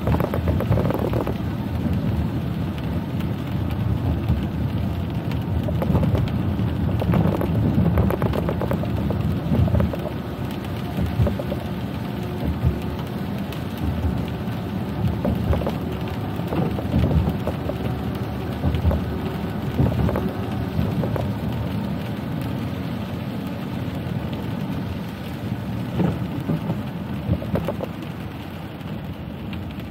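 A car driving in steady rain: rain striking the car and wet-road noise make a continuous low rumble, with many short sharp taps scattered through it.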